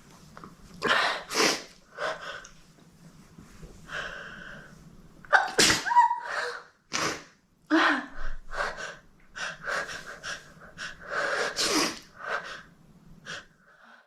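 Different people sneezing, one after another: a quick series of about a dozen sharp sneezes with short intakes of breath between them.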